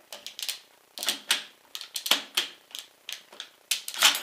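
Metal upper and lower receivers of an airsoft M4 clacking against each other as they are worked apart by hand: a string of irregular sharp clicks and knocks, the loudest near the end.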